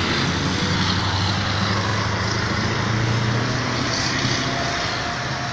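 Heavy military trucks in a convoy, their engines giving a steady low drone as they pass, easing off slightly near the end.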